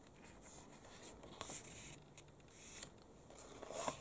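Faint rustle of magazine pages being handled, with a page turned over near the end.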